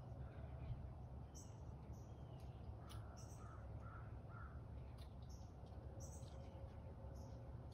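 Faint outdoor ambience: a steady low rumble with scattered short, high bird chirps. A little past the middle comes a run of four short, evenly spaced calls.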